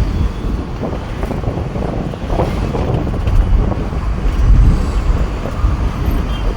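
City street traffic noise with wind buffeting the microphone: a dense, uneven low rumble throughout.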